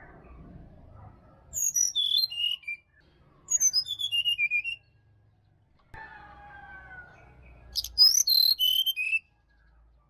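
Brown-chested jungle flycatcher singing three phrases of quick, high whistled notes, each falling in pitch. Between the second and third phrase comes a fainter, lower call that slides downward.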